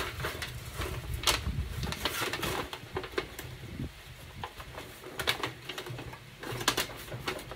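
Thin aluminum cake-pan sheet crinkling as it is bent and pressed by hand over the overlapped sheets, with sharp crackles every second or two over a low steady rumble.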